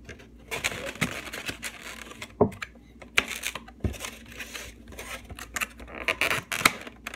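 Plastic egg carton being handled and shut close to the microphone: crinkling and rustling, with two sharp knocks about two and a half and four seconds in.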